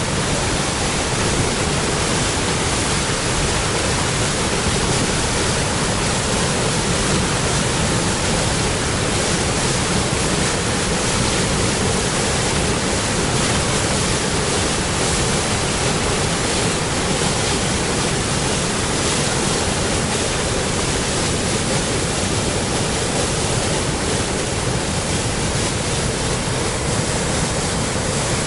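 Waterfall in spring flow: a steady rush of falling water.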